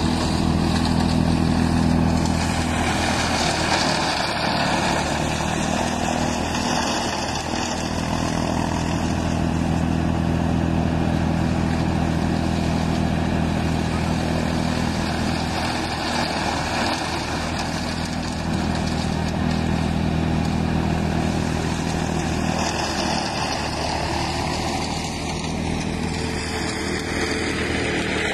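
Engine-driven chaff cutter (forage chopper) running steadily: a continuous engine drone with a broad rushing noise over it.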